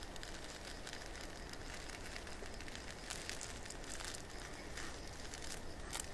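Metal fork cutting down through a layered crepe cake: quiet, soft crackling and rustling with scattered small clicks, a little stronger about halfway through and near the end.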